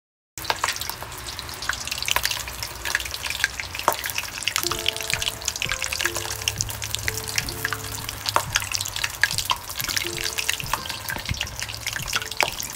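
A pot of pork leg boiling over an open flame: dense crackling and bubbling clicks over a steady hiss, cutting in abruptly just after the start. A simple background melody plays quietly underneath.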